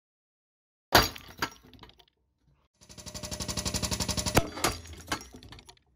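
A sharp bang about a second in, then the Bolt Buster's air-driven hydraulic pump pulsing rapidly, about ten strokes a second, as it loads the ram pulling a glue-in ring bolt from concrete. A few sharp snaps come near the end as the concrete gives under the load.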